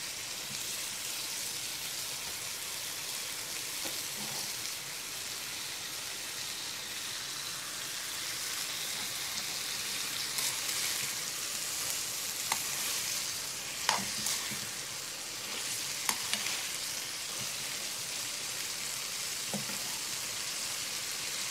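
Chopped liver and hot peppers sizzling as they fry in a hot pan: a steady high hiss, with a few sharp clicks in the second half.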